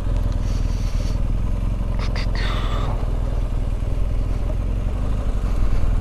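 BMW R 1250 GS boxer-twin engine running steadily at low speed as the motorcycle rolls slowly along a dirt road.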